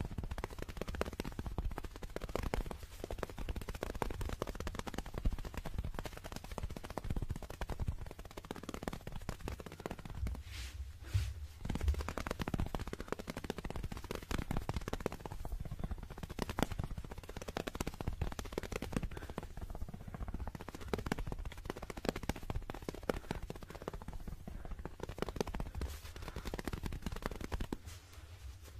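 Very fast fingertip and fingernail tapping on a small dark handheld object held close to the microphone: a dense, continuous rattle of taps with a low handling rumble underneath.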